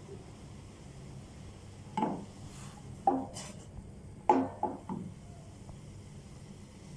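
A spoon knocking against a small saucepan while stirring, about five ringing clinks between two and five seconds in, over a faint steady hum.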